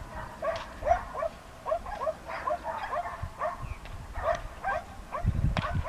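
A dog barking over and over in short, quick barks, about two to three a second. Low thumps join near the end.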